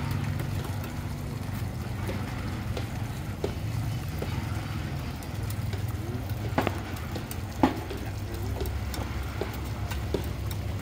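Water from a garden hose spraying onto a freshly cast concrete panel while metal trowels scrape and tap in its cut-outs, with two sharper clinks a little past halfway. A steady low mechanical hum runs underneath.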